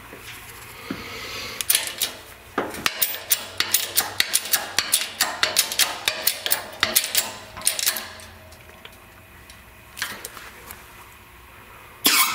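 Hydraulic bottle-jack shop press pressing a bearing into an aluminium hub, giving a quick irregular run of sharp metallic clicks and ticks, several a second, for about six seconds. One more click follows, and a sudden louder noise starts right at the end.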